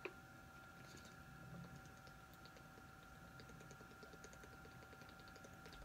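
Very quiet: faint, scattered ticks and crackles of a plastic water bottle being handled and drunk from, over a faint steady hum.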